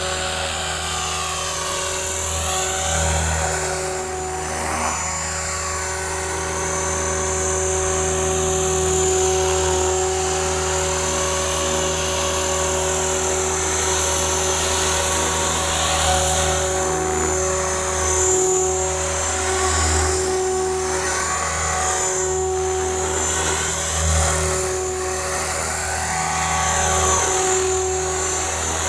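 RJX Vectron 520 radio-controlled helicopter in low flight: a steady whine from motor and rotors, its pitch sweeping up and down every few seconds as the helicopter moves about.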